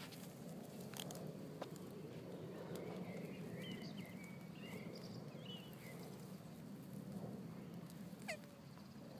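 A male tortoise mounted on a female during mating gives faint high squeaks a few seconds in, then a squeak that slides down in pitch near the end, over a steady low background hum.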